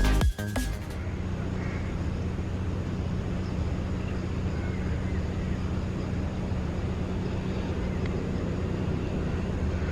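Electronic intro music cuts off under a second in, giving way to a steady low hum from a WAP-4 electric locomotive and train.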